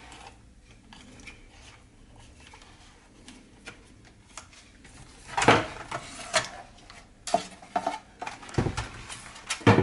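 Plastic clicks and knocks from a Saeco Odea espresso machine's housing and inner parts being handled and fitted back together. Faint rustling at first, then from about halfway in a run of sharper knocks with one dull thump.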